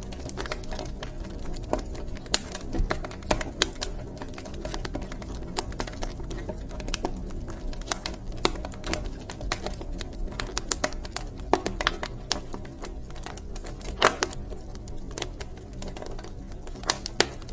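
Wood fire crackling in a fireplace: irregular sharp snaps and pops, several a second with a few louder cracks, over a steady low rumble of burning.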